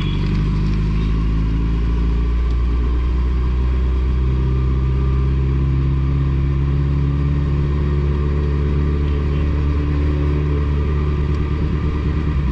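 Suzuki Hayabusa's inline-four engine running at low revs through a Two Brothers Racing exhaust. The engine note drifts gently up and down, with no hard revving.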